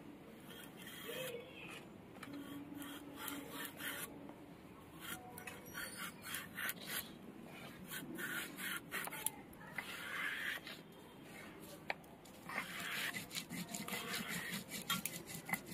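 Raw green banana being peeled and sliced on a boti, the upright curved blade of a Bengali floor cutter: a run of faint, irregular cutting and scraping clicks as the fruit is drawn against the blade.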